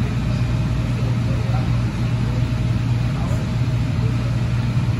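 Interior ride noise of a 2006 AnsaldoBreda P2550 light rail car in motion: a steady low hum over even rolling noise.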